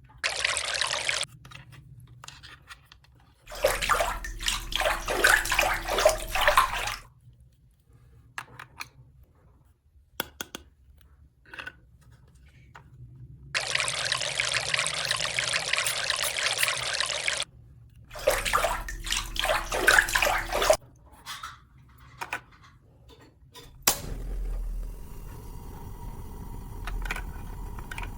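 Water running or pouring in four separate spells of a few seconds each, with short gaps between them. Near the end a fainter steady hum takes over.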